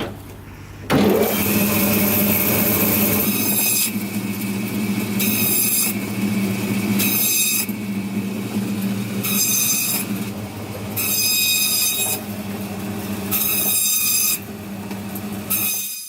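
ATV engine running steadily. It starts abruptly about a second in, with a high hiss that swells and fades roughly every two seconds.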